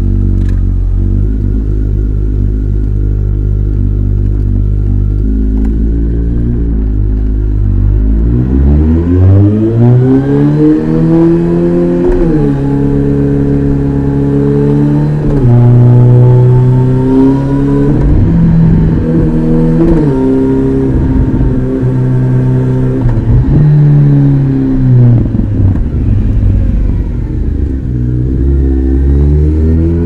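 Kawasaki ZX-14R's inline-four engine through an Akrapovic exhaust, running steadily at low revs and then accelerating about eight seconds in. Its pitch climbs and drops back at several upshifts, falls away as it eases off later on, and rises again near the end.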